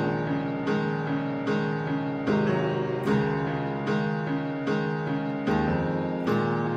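Background piano music, with notes and chords struck at an even pace of a little more than one a second.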